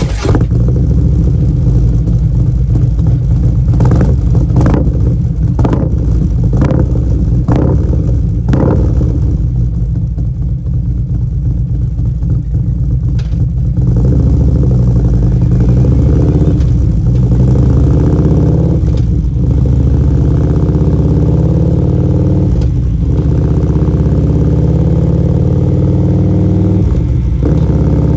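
2016 Harley-Davidson CVO Street Glide's Twin Cam 110 V-twin running through Vance & Hines Power Duals headers and CFR slip-on mufflers, just after start-up. It idles with a run of short throttle blips in the first several seconds, then settles to a steadier, louder run from about halfway, with a few more blips later.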